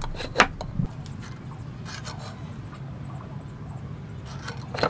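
A steel try square knocked and slid against a hardwood block while a pencil scratches lines along it: a sharp knock about half a second in, a softer one just after, and a few quick clicks near the end, over a steady low hum.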